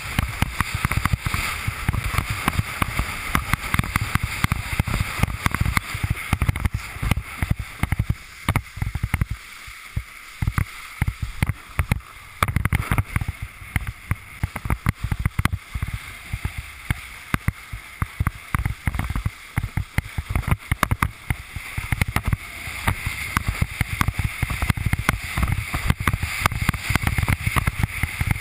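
A windsurf board sailing over choppy water: water rushing and slapping against the board in rapid irregular thumps, with wind buffeting the action camera's microphone. It eases off for a few seconds about a third of the way in, then picks up again.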